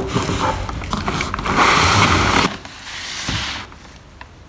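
Cardboard boxes scraping and rustling against each other as a boxed light is slid out of a large shipping carton. The sound is loudest about two seconds in and dies away by three and a half seconds.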